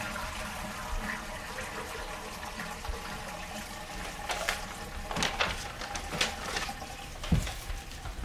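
Water rushing steadily, with several sharp knocks and taps in the second half, the loudest near the end.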